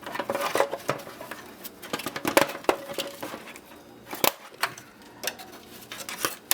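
Irregular clicks, knocks and rattles of plastic and metal parts being pulled off and handled as a dehumidifier is taken apart by hand.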